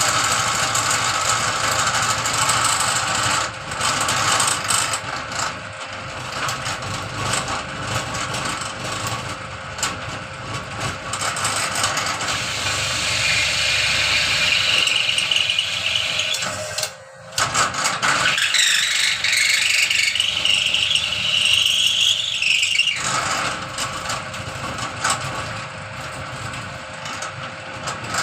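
Electric dowel-pointing machine for broom handles starting up and running, tapering the end of a 30 mm wooden dowel. It gives a steady mechanical whirr with a high squeal that comes and goes. It drops out briefly about halfway through, then a high whine rises and holds for several seconds before falling away.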